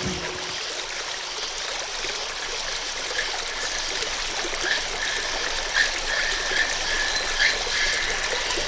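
Waterfall: a steady rush of falling water, an even hiss with little low rumble.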